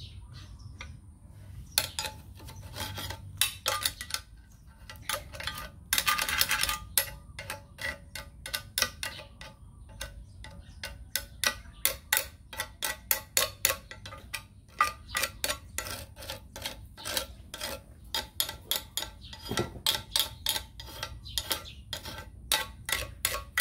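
A steel hand tool clicking and scraping against a metal bench vise: a steady run of sharp irregular clicks, two to four a second, with a short burst of scraping about six seconds in.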